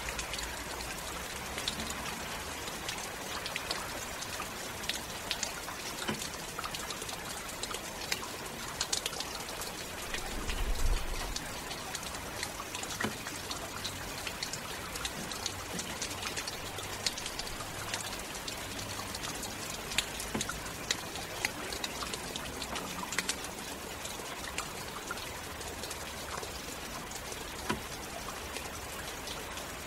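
Very heavy rain falling steadily, a dense hiss with many individual drops clicking sharply on a hard surface. About ten seconds in comes a brief low rumble that is the loudest moment.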